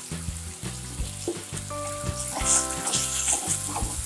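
Tamarind juice and fried onions sizzling in hot oil in a nonstick pan, with a spatula starting to stir near the end. Background music with a steady bass line plays along.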